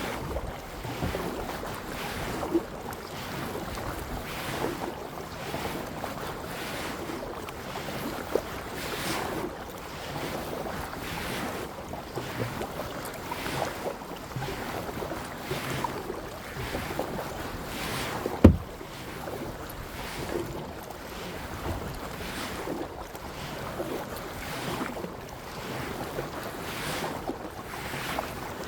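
Kayak paddling: water splashing and swishing with each paddle stroke every second or two, with wind buffeting the microphone. A single sharp thump about two-thirds of the way through.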